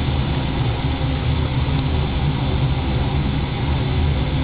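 A steady low engine rumble that holds an even level throughout.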